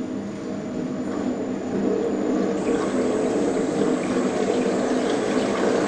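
Belt-driven planetary mixer running, its motor and drive giving a steady mechanical hum and churn that grows louder over the first two seconds as the speed knob is turned up, then holds steady.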